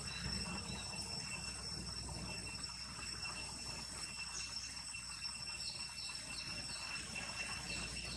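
Insects trilling steadily in high, unbroken tones, with a few short falling chirps around the middle over a low background rumble.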